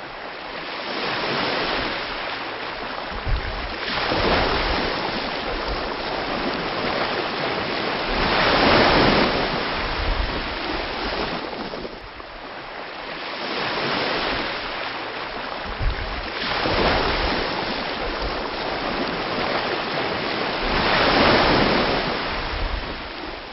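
Ocean waves breaking and washing up on a shore, surging and ebbing every four to five seconds, loudest about nine seconds in and again near the end, where the sound begins to fade out.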